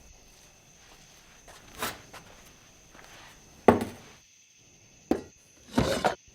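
Recreated foley of coffee-making: kitchen things being handled and set down in a small room, four separate knocks and clunks, the loudest a sharp knock with a short ring about halfway, and a longer rattling clatter near the end.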